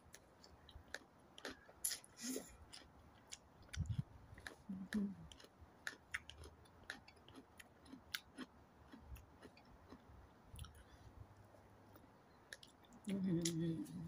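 A person chewing food close to the microphone, with many small wet mouth clicks and smacks scattered through. Near the end, a short voiced sound of about a second.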